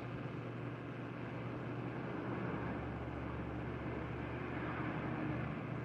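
Steady running noise of a tour bus heard from inside the passenger cabin: an even engine and road hum with no changes.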